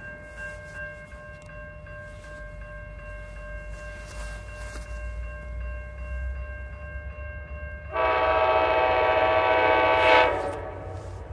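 An approaching commuter train's air horn sounds one loud, steady blast lasting about two and a half seconds, starting about eight seconds in. Before it, a faint steady ringing tone is heard.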